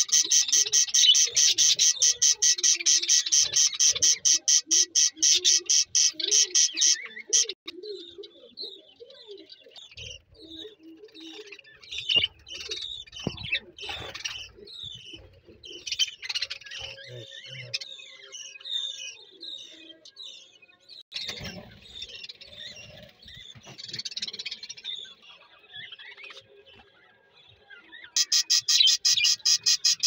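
Budgerigars chirping and chattering in short, varied calls. A loud, fast, evenly pulsing high buzz fills the first quarter, stops abruptly, and comes back near the end.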